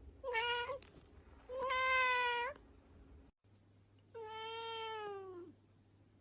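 Cat meowing three times: a short meow, a longer one, then a long meow that falls in pitch as it ends.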